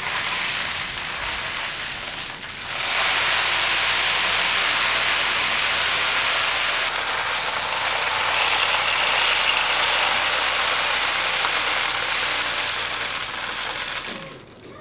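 Dried beans pouring in a dense, continuous rattling stream. It grows much louder about three seconds in and stops suddenly near the end.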